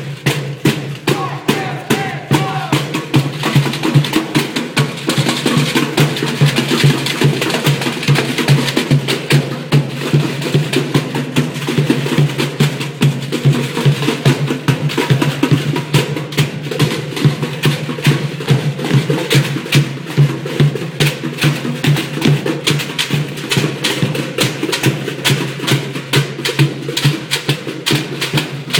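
A percussion ensemble drumming on plastic pails and buckets, a fast, steady rhythm of many overlapping strikes.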